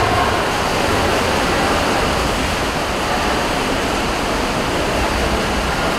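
Steady, loud wash of water noise from swimmers splashing through a race in a pool.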